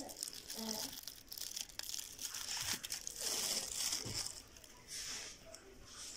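Crinkling and rustling of aluminium foil as a plate of fried qatayef is handled, with a few light clicks.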